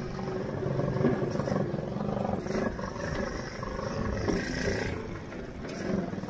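Shifter go-kart engine running as the kart drives along, with wind rushing over the helmet-mounted microphone.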